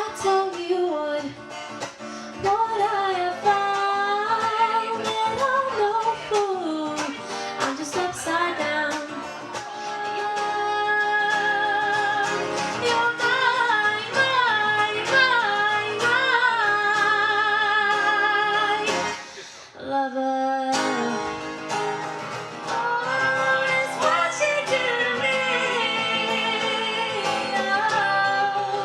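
Live music: a woman singing with a strummed acoustic guitar, held notes wavering with vibrato. About two-thirds through the music drops out briefly and picks up again in a different passage.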